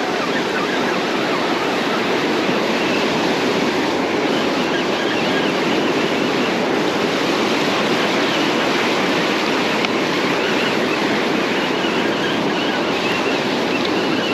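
Ocean surf: waves breaking and foamy wash running up the sand, a steady rush.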